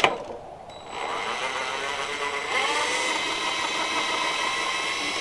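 DeWalt 20V cordless impact driver running slowly, backing out an already loosened engine mounting bolt from a lawn mower deck. A short click, then from about a second in a steady motor whine with a slight change in pitch partway.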